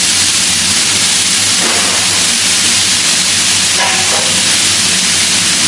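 Fried rice sizzling on a hot teppanyaki steel griddle: liquid poured from a bottle flashes to steam in a steady hiss.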